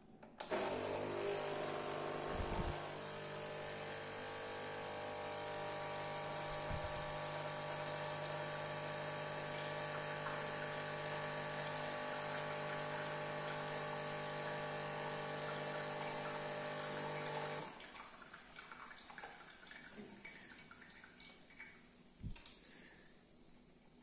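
Philips Senseo pod coffee machine's pump running with a steady hum as it pushes water out of the spout into a glass. It starts just after the button is pressed and cuts off suddenly about 17 seconds in. Quiet dripping and a short knock follow near the end.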